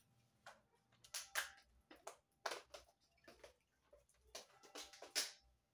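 Scattered light clicks and knocks of kitchen handling, a dozen or so irregular taps with no steady sound between them.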